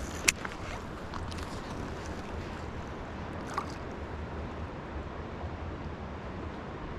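Steady rush of flowing stream water with wind on the microphone, broken by a sharp click about a third of a second in and a fainter tick about halfway through.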